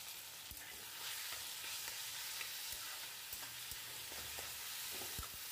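Onions and boiled taro leaves frying in mustard oil in a wok: a steady sizzle, with the spatula's scattered scrapes and taps as it stirs.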